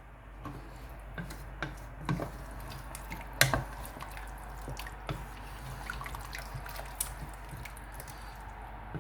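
Meat stock being poured into a pot of soup, dripping and splashing in scattered small drops, the loudest splash about three and a half seconds in.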